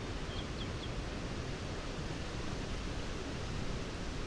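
Steady rush of flowing river water, with three faint high chirps about half a second in.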